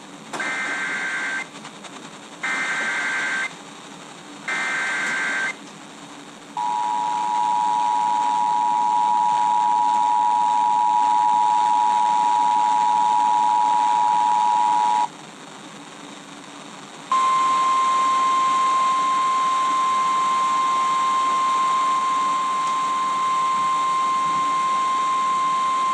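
Emergency Alert System activation received over the radio: three short screeching bursts of SAME header data, then the two-tone EAS attention signal held for about eight seconds, then after a short pause the single-tone NOAA Weather Radio alert tone held for about nine seconds, with radio hiss underneath. The tones introduce a severe thunderstorm warning.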